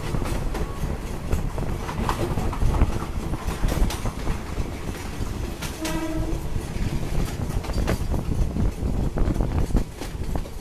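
Diesel passenger train running along the track, heard from an open carriage window: steady rumble and clatter of the wheels over the rails, with a short horn note about six seconds in.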